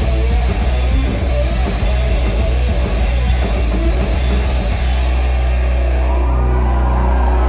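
Live punk rock band playing loud, with distorted electric guitar and drums. About two-thirds of the way through the drums stop and a steady low drone rings on.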